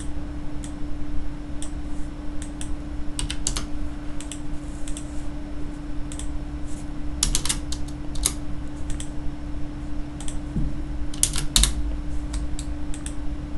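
Scattered clicks of a computer mouse and keyboard, irregular and now and then in quick little clusters, over a steady hum.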